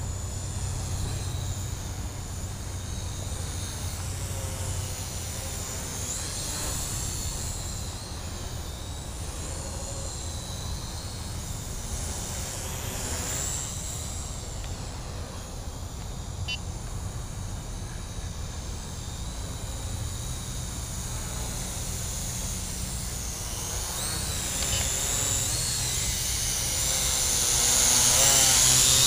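WLtoys Q333 'Future 1' toy quadcopter flying: a high whine from its motors and propellers that wavers up and down in pitch as it manoeuvres, growing louder over the last few seconds as it comes in close and hovers.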